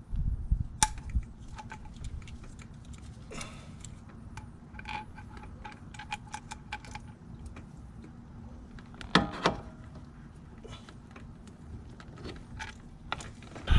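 Hose parts and tools being handled: scattered small clicks and light clatter, with a sharper click about a second in and a louder rattle about nine seconds in.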